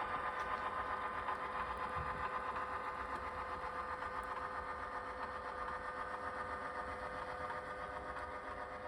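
HO scale model GP9 diesel locomotive moving slowly, a steady diesel engine sound with a constant hum, fading slightly.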